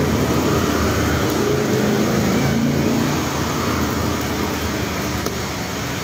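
Street traffic: a motor vehicle's engine running close by over steady road noise, easing off a little about three seconds in.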